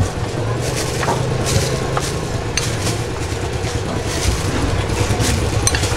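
Shredded cabbage and bean sprouts being dropped by hand onto china bowls of rice, with light rustles and scattered clinks, over a steady low hum.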